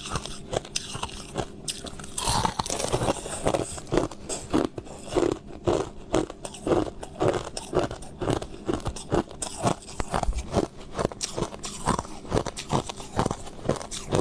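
Crushed ice being bitten and chewed close to the microphone: a steady run of crisp crunches, about two a second.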